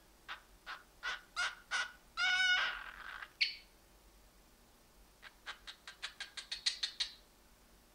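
Cockatiel making a run of short clicking chirps that speed up, then one harsh, raspy call a little over two seconds in and a sharp click soon after. After a pause comes a second, faster run of about a dozen clicking chirps.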